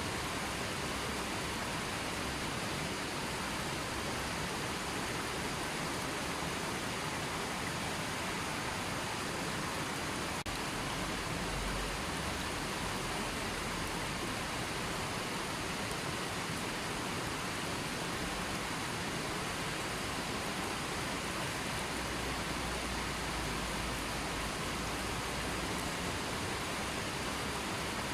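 A river flowing: a steady, even rush of running water.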